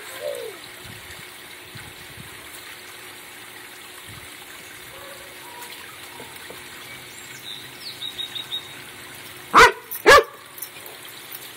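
A dog barks twice, about half a second apart, near the end, over the steady splashing of a small pond fountain.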